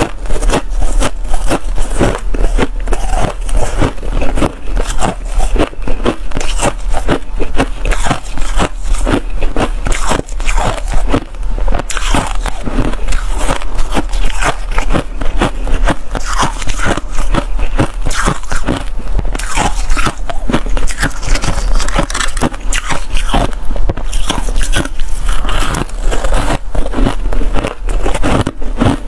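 Freezer frost being bitten and chewed in the mouth: a dense, unbroken run of crisp crunches, several a second.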